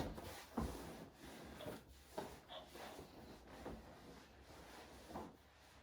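A person turning onto their side on a treatment table. Clothing and body rub against the table's surface, with a few soft knocks and shuffles.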